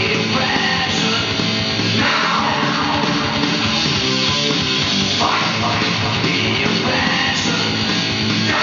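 Heavy rock music with electric guitar, playing from a vinyl LP on a Technics SL-20A turntable.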